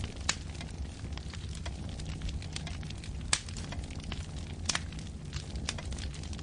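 Wood fire burning in a fireplace: a steady low rumble with frequent crackles and sharp pops of the burning logs, the loudest pops about a third of a second, three and a quarter seconds and four and three-quarter seconds in.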